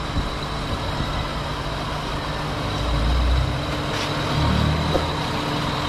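A motor vehicle engine running, a low rumble with a steady hum over it that swells about three seconds in and again a little later.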